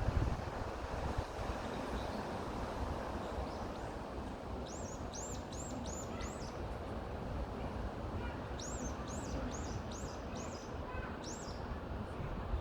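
Steady wind in forest trees, with a bird singing two runs of short, high, arching notes, five or six to a run, the first a little before the middle and the second later on.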